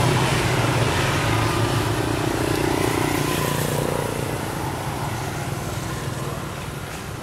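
A motor vehicle's engine running with a steady low hum that slowly fades away.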